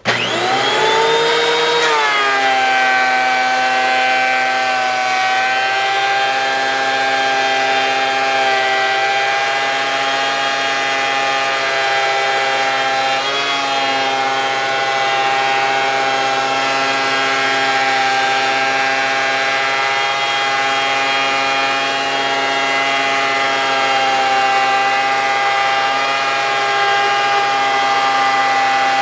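Gas chainsaw starting up abruptly, revving up over about two seconds, then running steadily at high throttle.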